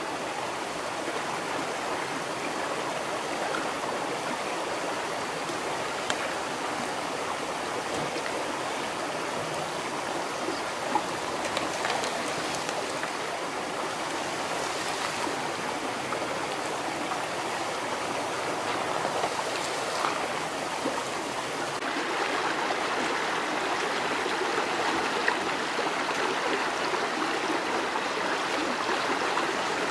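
Steady rush of running water, with a few faint knocks over it.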